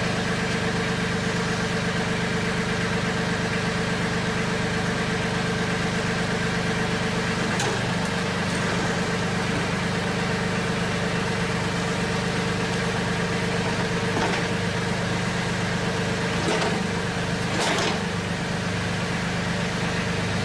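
Mahindra 1526 tractor's diesel engine running steadily while the backhoe is lowered onto blocks, with a few brief knocks, the loudest near the end.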